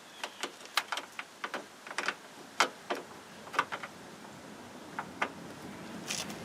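Irregular small, sharp clicks and clacks of the door lock cylinder and its fitting parts being handled and pushed together, a dozen or so over a few seconds, with a close pair of clicks near the end.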